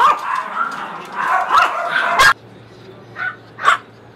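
Several small caged dogs barking and yipping over one another, stopping suddenly a little past two seconds in, followed by two short yips.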